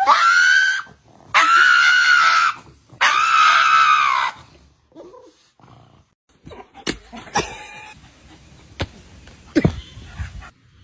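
A pet animal gives three long, high-pitched cries in a row, each rising and falling in pitch, followed by a few faint clicks and knocks.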